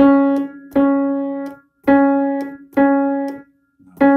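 A single piano note struck five times in slow succession, each strike with a sharp click-like knock at the start. It is an unwanted noise in the piano action, like a click but not quite, caused by two neighbouring jacks leaning against each other.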